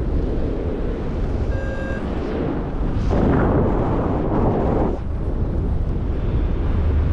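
Wind buffeting the microphone in paraglider flight: a loud, rough rushing that swells between about three and five seconds in. A short electronic beep sounds about one and a half seconds in.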